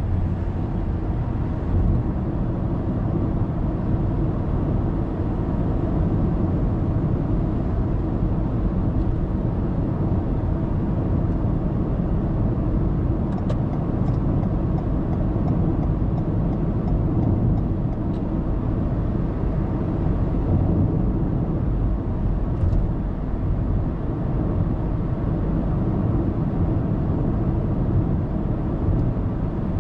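Car cruising at expressway speed, with a steady low drone of tyre, road and engine noise heard from inside the cabin through a dashcam.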